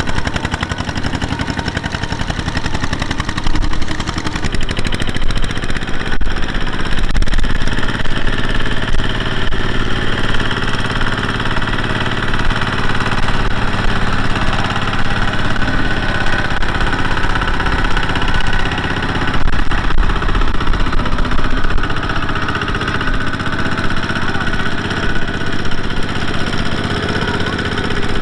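Single-cylinder diesel engine of a Kubota two-wheel walking tractor running steadily under load as it hauls a trailer of rice sacks through mud and water.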